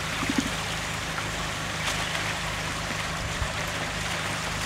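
Shallow stream water running steadily, a continuous even rush.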